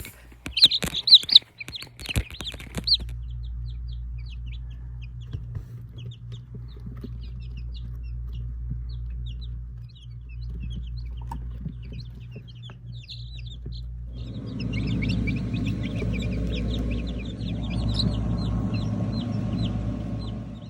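Chickens calling and clucking. A loud, shrill call repeats several times in the first three seconds. After that comes quieter scattered chatter over a low hum, which grows fuller and louder from about two-thirds of the way in.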